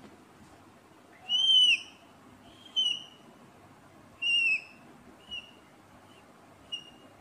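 Whiteboard marker squeaking against the board as lines are drawn: five high squeaks, the first longest and loudest and the later ones shorter.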